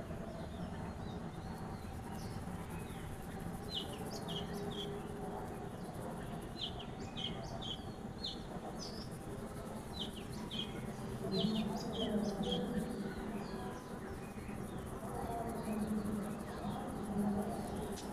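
Small birds chirping in several quick runs of short, high notes, over a steady low background hum.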